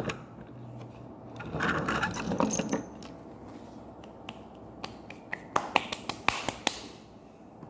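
Hand handling noise: a stretch of rustling, then a quick run of sharp clicks between about five and seven seconds in.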